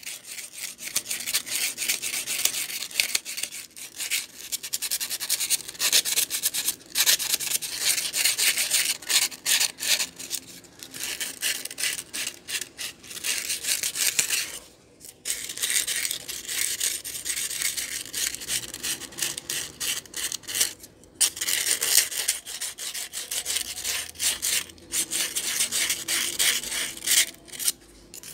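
Fine sandpaper rubbed rapidly back and forth along the steel shaft of a Dowell stand fan's motor rotor: a dense scratching with a few short pauses. The shaft is being cleaned of the black, oily dust that had seized it in its bushing.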